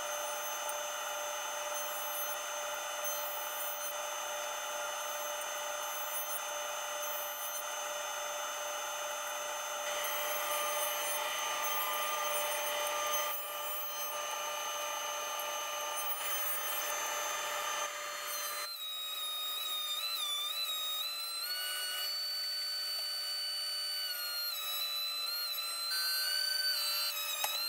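Jointer running with a steady whine as pallet boards are face-jointed on it, then, about two-thirds of the way in, a DeWalt benchtop thickness planer whose motor whine dips and recovers as boards feed through.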